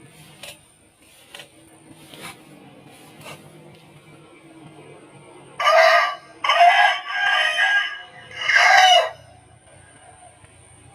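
Aseel rooster crowing once, starting about halfway in: one loud crow of about three and a half seconds, in several linked parts. A few faint clicks come before it.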